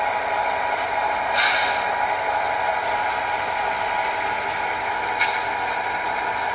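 HO scale model diesel locomotive's sound decoder running a steady engine sound, with short bursts of air hiss a few times.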